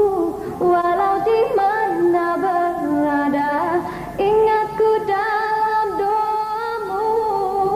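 A woman singing a Malay ballad, drawing out long ornamented notes without clear words, with a wavering vibrato a little after the middle.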